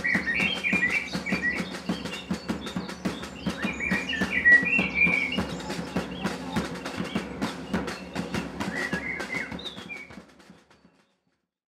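Soundtrack music of fast, steady clicking percussion over a low pulse, with bird-like chirps in three short clusters. It fades out about ten seconds in.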